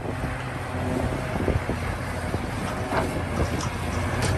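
A heavy engine running steadily with a low hum, with scattered clicks and rattles over it.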